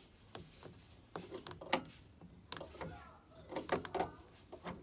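Scattered clicks and knocks of a spanner and dashboard fittings being worked loose while the dashboard bolts of a Ford Cortina Mk3 are undone, with a cluster of knocks near the end.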